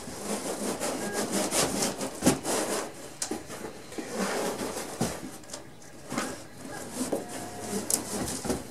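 Dense packing foam and cardboard rubbing and scraping against each other as a 3D printer is worked out of its tight-fitting shipping box, irregular and uneven, with a couple of sharp knocks.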